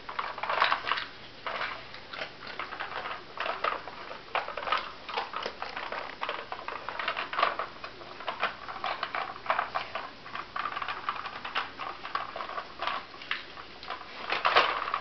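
Plastic Nina Ottosson Dog Tornado puzzle toy clicking and clattering irregularly as a greyhound noses and pushes its rotating layers to get at the kibble in its compartments.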